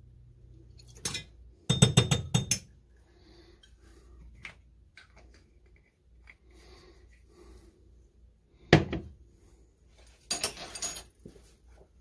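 Metal measuring spoon clinking against a glass measuring cup: a rapid flurry of ringing clinks about two seconds in, then a single sharp knock and another short clattering run near the end.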